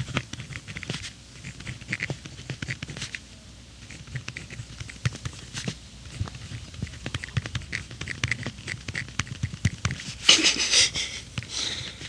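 Centennial mechanical pencil writing on paper: a run of small scratchy strokes and tip ticks, with a longer, louder scratching stroke about ten seconds in.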